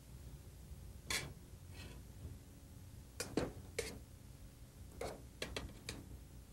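Scattered faint clinks and taps of a utensil against metal stockpots at a stove, a few at a time, over a low steady hum.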